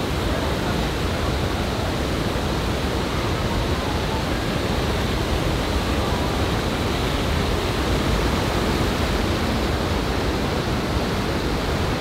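Waterfall pouring into a shallow pool close by: a steady, unbroken rush of falling water.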